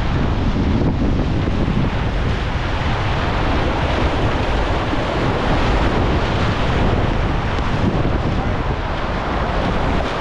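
Whitewater rapids rushing steadily around a kayak, loud and close, with water and wind buffeting the camera's microphone.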